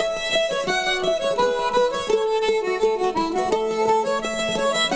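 Instrumental music with a quick, busy melody over plucked strings.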